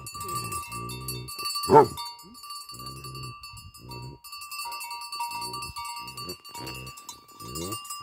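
Large livestock guardian dog barking: one loud, deep bark about two seconds in, with softer, low, short barks and huffs repeated through the rest. A steady high tone runs underneath.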